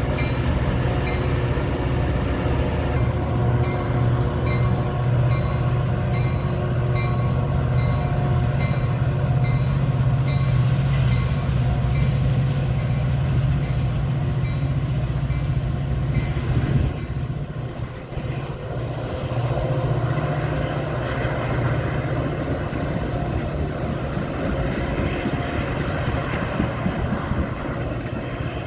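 A train passing at close range, a steady loud rumble that dips briefly about seventeen seconds in and then carries on.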